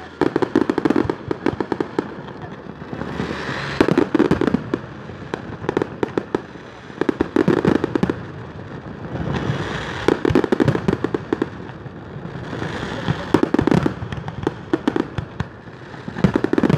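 Fireworks display: volleys of rapid bangs and crackling from bursting aerial shells, coming in waves about every three seconds, with a rushing hiss building before several of them.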